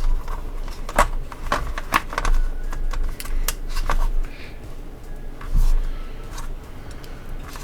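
Hard plastic sections of an action-figure display base clicking and clacking as they are handled and pushed back together, in a string of irregular sharp clicks.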